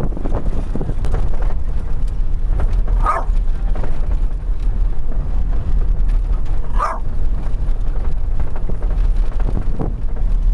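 Steady low rumble of a vehicle driving on a dirt road, heard from inside the cab. Over it, a Jack Russell terrier on the dashboard gives two short barks, about three seconds in and about seven seconds in.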